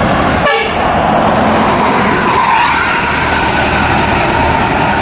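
An intercity bus passing close at speed: a steady rush of tyre noise on the road over a running engine.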